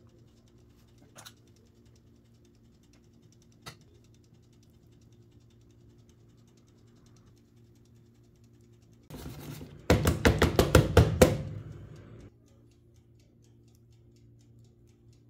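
A quick run of about ten sharp, loud knocks in roughly a second and a half, about ten seconds in, just after a brief rustle. Before it, only a faint steady hum and two soft clicks.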